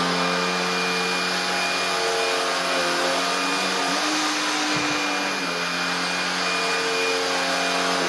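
Shark IZ320EUT cordless stick vacuum running at maximum suction, its DuoClean PowerFins floor head pushed over carpet: a steady motor whine and air rush whose pitch shifts slightly a couple of times as the head moves.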